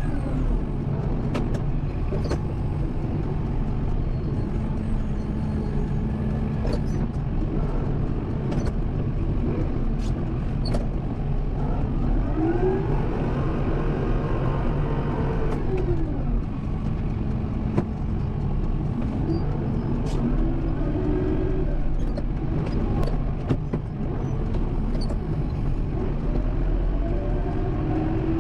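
Kubota M7060 tractor's four-cylinder diesel engine running under load while pushing snow, its pitch rising and falling several times as it revs up and eases off. Occasional sharp knocks sound over the engine.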